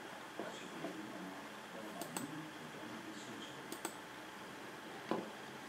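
Computer mouse button clicks: two quick pairs of clicks around the middle and a single click near the end, over quiet room tone.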